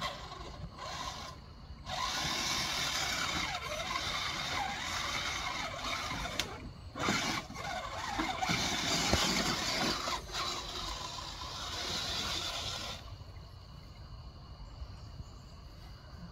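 Electric motor and gear drive of a radio-controlled crawler truck whining in spurts as it climbs over creek rocks. It starts about two seconds in, drops out briefly twice, and stops about thirteen seconds in.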